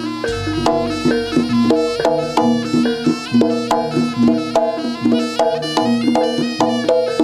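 Javanese jaranan gamelan music playing: struck metal keyed instruments ring out a quick, even melody of short notes over drum strokes.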